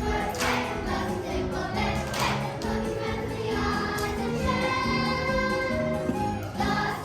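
Children's choir singing a Christian worship song with instrumental accompaniment, holding sung notes over a moving bass line.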